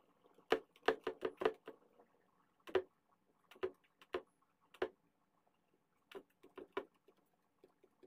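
Light, irregular knocks and clicks of a solid cast resin-and-pebble bowl being handled on a tabletop while it is wiped with a cloth: a quick run of about six in the first second and a half, a few single ones after, and three more near the end.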